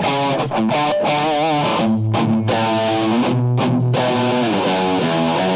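Rock band playing an instrumental passage led by electric guitar: sustained notes, some with vibrato, over a steady beat with strong accents about every second and a half.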